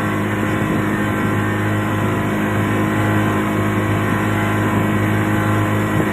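Boat engine running steadily at constant speed, a low, even drone that does not change.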